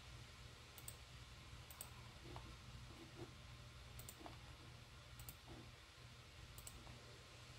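Near silence with five faint, sharp clicks at irregular intervals over a low steady hum.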